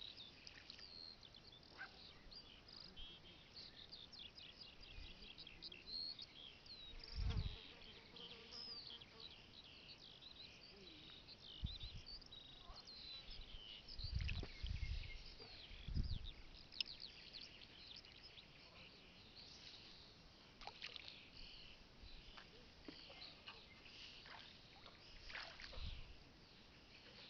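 Small birds chirping and singing, many short rising and falling notes. A few brief low thumps of wind buffeting the microphone break in, the loudest about seven seconds in and around fourteen to sixteen seconds in.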